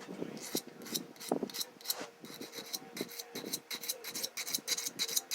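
Steel lock-pick blank being honed by hand on a wet sharpening stone: quick back-and-forth rasping strokes, about three to five a second.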